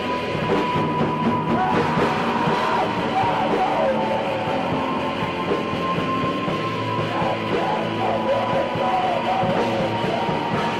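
Raw black metal recorded with a lo-fi, old-tape sound: a dense, noisy wall of band sound with a steady high tone, and a wavering melodic line riding over it from about two seconds in.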